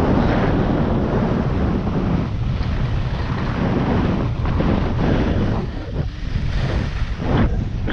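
Wind rushing over the microphone of a camera worn by a skier moving fast downhill, mixed with skis scraping across packed snow. The noise is loud and swells and drops every second or two, with each turn.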